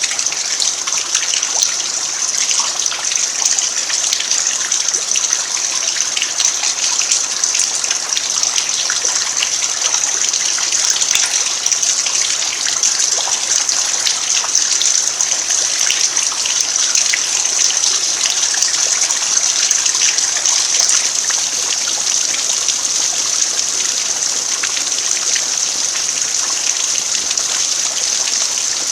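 Steady rain falling on an earthen yard, a dense, even patter of drops.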